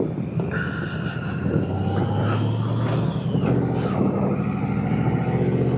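Engine of a 2006 Yamaha Royal Star V4 cruiser motorcycle running under throttle while being ridden, a steady deep engine note with a fainter higher whine over it in the first few seconds.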